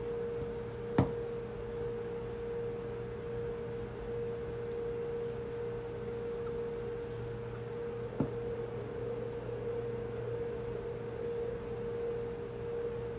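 A steady hum held on one pitch, with a fainter low hum beneath it; two short clicks, about a second in and about eight seconds in.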